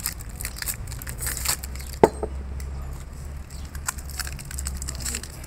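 Thin steel diesel-engine piston rings clicking and rattling against each other as they are pulled apart and handled, with one sharp click about two seconds in. A steady low hum runs underneath.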